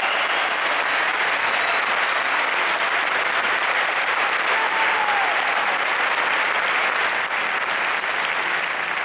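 Audience in a hall applauding steadily, easing off slightly near the end.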